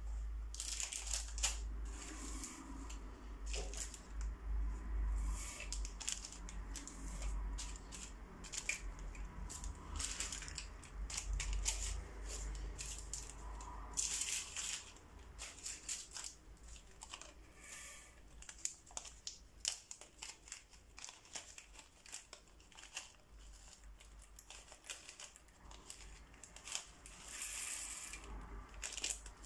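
Crinkling and rustling of small plastic zip bags of craft beads being handled and opened, with scattered sharp clicks and taps at irregular intervals.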